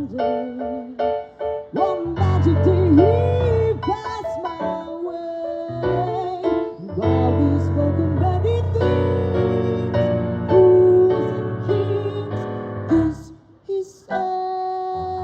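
Instrumental passage of a slow jazz ballad, led by piano chords over low bass notes, with a wavering melody line above.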